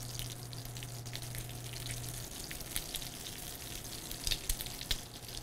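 Bacon-wrapped dates sizzling and crackling in hot oil in a small cast-iron skillet as the bacon sears. A low steady hum stops about two seconds in.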